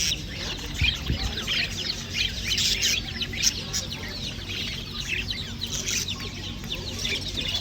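Many small caged birds chirping at once, a dense, unbroken chorus of short overlapping high chirps.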